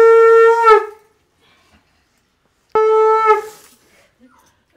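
Conch shell (shankha) blown in two loud, steady blasts, the first ending just under a second in and the second starting a little before three seconds in. Each blast sags in pitch as it dies away.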